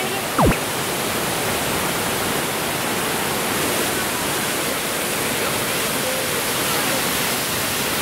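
Steady rush of white water from a waterfall and cascading mountain creek, an even, dense noise. About half a second in, a brief loud tone sweeps quickly down in pitch.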